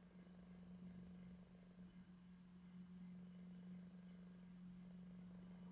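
Swiss 15-jewel lever-escapement pocket watch ticking faintly and evenly, about five ticks a second, over a steady low hum.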